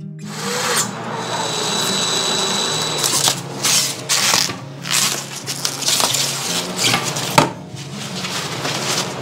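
Cordless drill/driver running steadily for about three seconds as the toilet seat is fastened. This is followed by several short bursts of crinkling wrapping and a sharp click.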